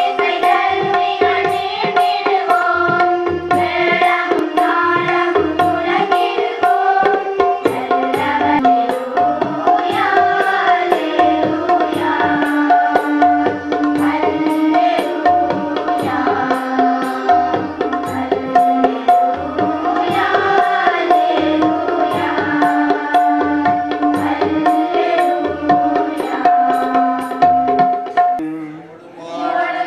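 Tamil devotional hymn: singing over tabla drumming with a steady beat and a sustained held note underneath. The music drops away briefly near the end.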